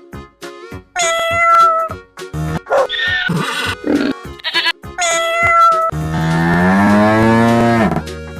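Cow mooing: one long call of about two seconds, slowly rising then dropping in pitch near its end, over a light children's background melody, with a few short animal cries earlier on.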